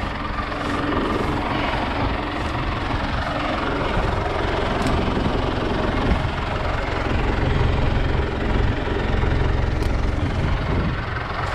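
Diesel engine of a John Deere 3200 telehandler idling steadily close by.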